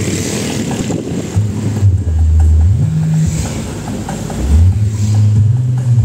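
Road noise from riding through traffic on a motorcycle: a broad rushing of engine, tyres and wind, with strong deep low tones that hold and then shift in pitch in steps several times.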